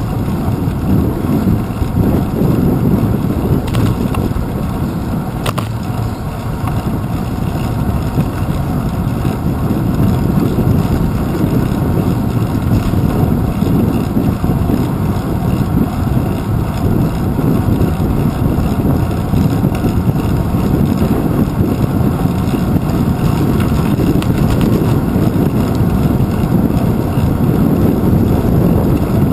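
Steady low rumble of wind buffeting and road vibration on a handlebar-mounted GoPro Hero 2 as a bicycle rolls along a paved path.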